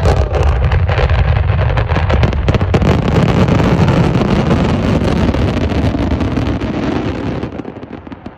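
About 4,000 fireworks set off at the same time: a loud, continuous barrage of launches and dense crackling bangs with a deep rumble underneath, easing off near the end.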